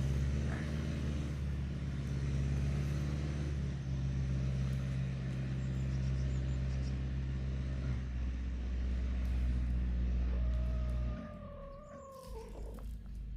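A motor hums steadily and stops abruptly about eleven seconds in. Near the end, overlapping the stop, a hen gives one drawn-out call that falls slowly in pitch.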